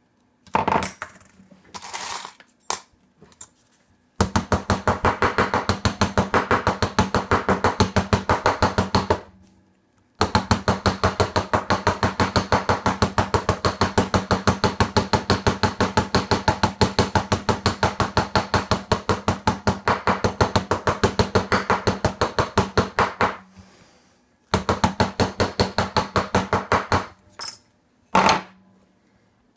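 Hammer tapping small metal-clay charms on a steel bench block in long runs of rapid, evenly spaced taps, with short pauses between runs. A few light metallic clinks of charms being handled come before the first run.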